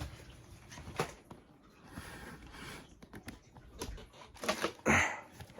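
Handling noise: scattered clicks and knocks as the camera or phone is picked up and moved to a new position, with a louder brief rustle about five seconds in.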